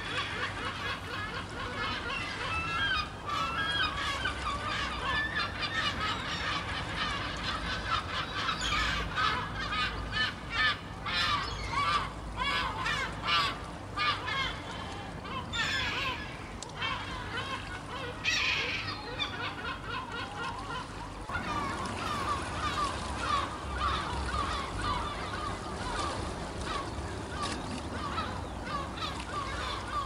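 A flock of gulls calling over one another in a dense, unbroken chorus of short cries.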